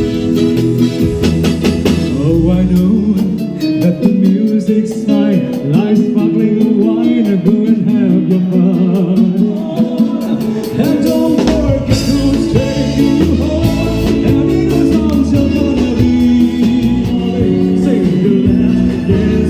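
Music: a guitar-led song with a singing voice, playing steadily throughout.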